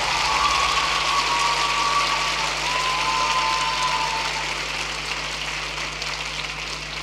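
Arena crowd applauding at the end of a figure skating program, easing off a little toward the end.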